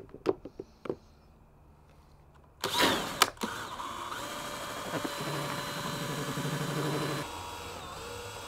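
A few light clicks, then a cordless drill spins up about three seconds in and runs steadily, driving a paint-mixing paddle that stirs wood stain in a gallon can.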